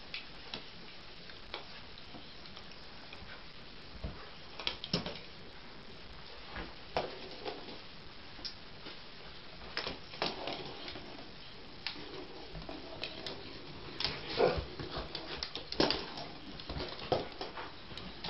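A dog playing with a small ball toy on a rug and wooden floor: irregular knocks, clicks and scuffles as the toy is batted about and the paws shift. These are sparse at first and come thick and fast in the second half.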